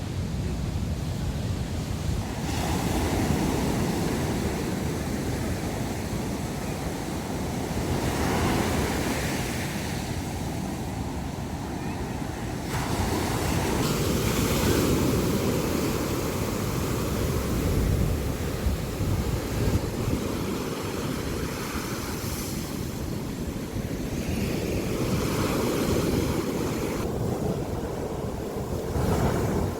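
Sea waves breaking on a beach, the surf swelling and easing several times, with wind buffeting the microphone.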